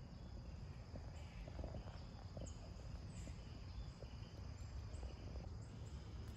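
Faint outdoor ambience: a low rumble of wind or handling noise on the phone's microphone under a steady, high-pitched thin drone, with a few faint, short, high chirps.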